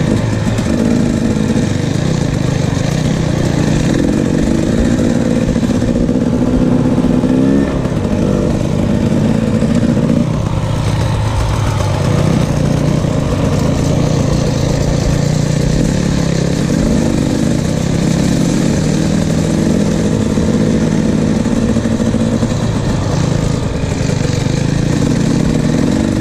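KTM 300 XC-W's two-stroke single-cylinder engine under way on a dirt trail, its pitch rising and falling as the throttle opens and closes, easing off briefly about ten seconds in.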